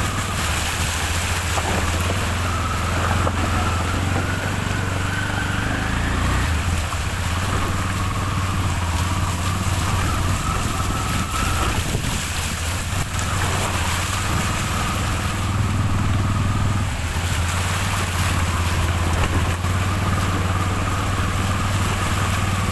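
Small vehicle engine running steadily as the vehicle drives through shallow floodwater over a road, with a low hum and a whine that rises and falls a few times, over a constant rush of water and tyre noise.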